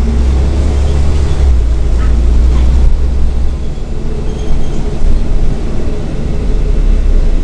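Scania Omnitown (N94UB) single-deck bus's five-cylinder diesel engine, heard from inside the passenger saloon, running steadily as the bus drives along: a strong, even low drone.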